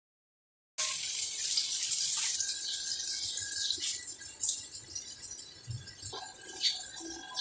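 Sliced onions sizzling in hot oil in a pan: a steady high hiss with small crackles that starts suddenly about a second in.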